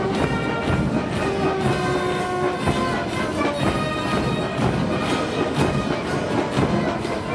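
Military brass band playing a march, with sustained brass tones over a steady drum beat.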